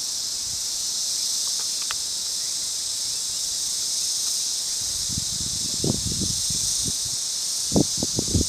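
A steady high-pitched hiss, with a few low bumps on the microphone about five to six and a half seconds in and again near the end.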